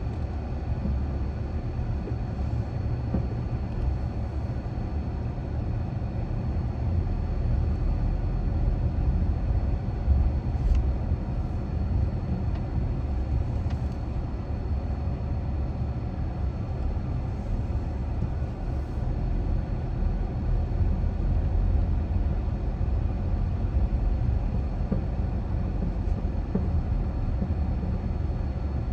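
Steady low rumble of a car driving at neighborhood speed: tyre, road and engine noise with no sudden changes, and a couple of faint clicks around the middle.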